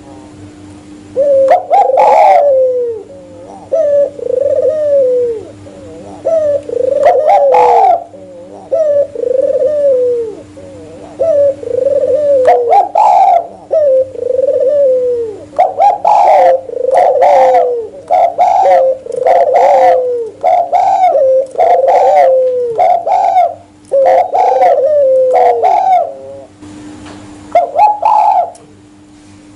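Spotted doves and albino ringneck doves cooing together in a run of repeated low, arched coos. The coos come closer together in the second half, then pause briefly before a last phrase near the end.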